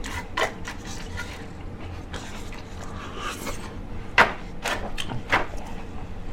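Rubbing and scraping handling noise close to the microphone, with a few sharp clicks, the loudest about four seconds in.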